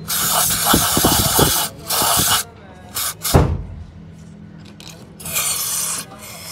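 Aerosol throttle-body cleaner sprayed through its straw into an open throttle body in repeated bursts of hiss: a long one of about a second and a half, a few short ones, and another near the end. A few low thuds come in among the bursts.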